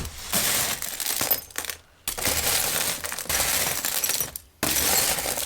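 Small pieces of mixed metal scrap rattling and clinking on a workbench as a large magnet is swept through the pile to pull out the ferrous bits. The clatter comes in three rushes of a second or two each, with short pauses between them.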